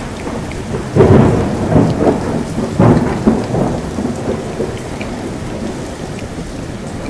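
Heavy downpour hissing steadily, broken by sudden loud rumbling thumps, the biggest about a second in and again near three seconds.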